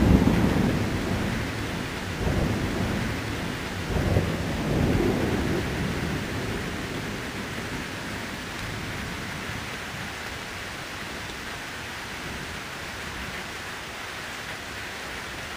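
Thunder rumbling and dying away, with a second rumble about four seconds in, over steady rain.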